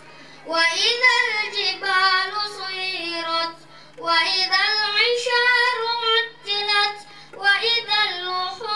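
A boy chanting Quran recitation from memory, in three long melodic phrases of held, gliding notes with short breaths between them, over a steady low hum.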